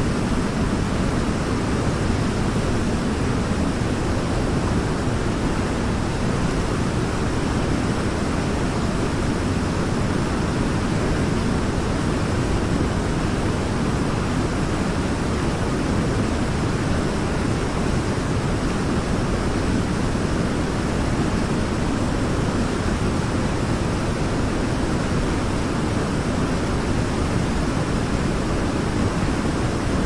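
Big waterfall: a steady, unbroken rush of falling water, deep and full, with no change throughout.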